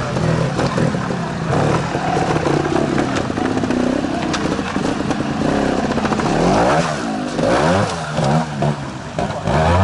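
Trials motorcycle engine revving in short, repeated bursts, its pitch rising and falling as the bike is worked up a rock section. A few sharp knocks sound over it.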